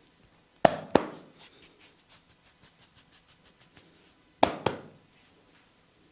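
A masseur's hands strike in two quick double slaps, one pair just under a second in and another about four and a half seconds in. Between them runs a string of faint, quick taps, about four a second.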